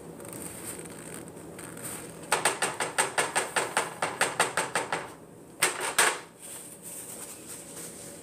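A cooking utensil knocking against a pan of refried beans: a quick, even run of clicks, about five a second for under three seconds, starting a couple of seconds in, then two louder knocks.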